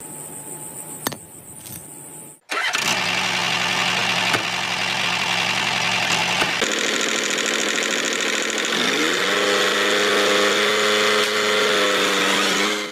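Small engine running steadily, stepping up in pitch about nine seconds in as it speeds up.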